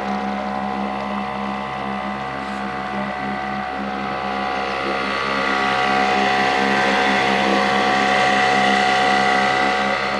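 Small outboard motor running steadily as it drives an inflatable boat along, a constant engine drone that grows slightly louder in the second half.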